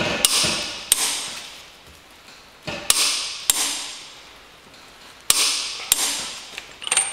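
Click-type torque wrench on the front hub nut, clicking as it reaches its 200 Nm setting. Three pairs of sharp metallic clicks come a little over two seconds apart, each fading over about a second, with one more click near the end.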